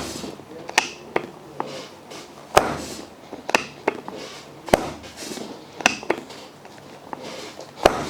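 A chiropractic adjustment of the foot: about ten sharp cracks and clicks at irregular intervals, with faint rustling in between.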